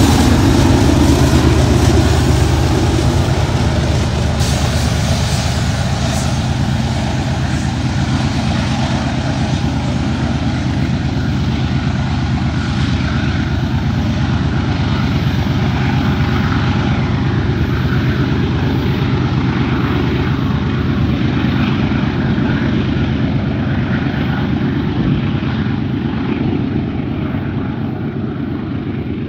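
Diesel locomotives of a double-stack container train passing and pulling away, their engines a deep, steady drone with the higher rolling noise of the train thinning out. The sound fades slowly as the train recedes, most clearly near the end.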